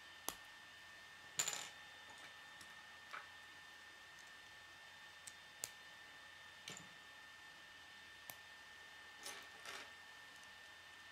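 K'nex plastic rods and connectors clicking as they are handled and snapped together by hand: scattered sharp clicks, the loudest a quick cluster about a second and a half in.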